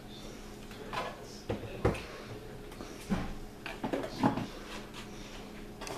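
Rummaging through a crowded kitchen spice cabinet: a few scattered knocks and clinks of jars and bottles being shifted on the shelf.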